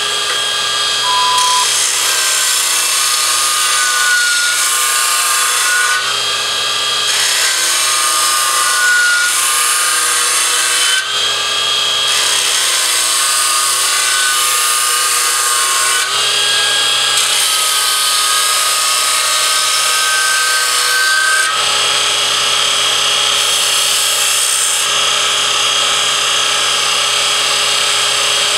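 Burr King X400 belt grinder, its 1 hp motor driving a coated abrasive belt, grinding the edge of a steel lawnmower blade: a steady grinding hiss with high, wavering squeal tones, changing in character every few seconds.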